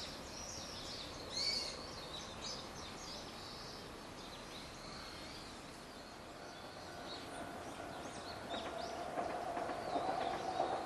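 Small birds chirping and twittering, then from about two-thirds of the way in a distant Ichibata Electric Railway train running along the line, growing louder with a steady hum.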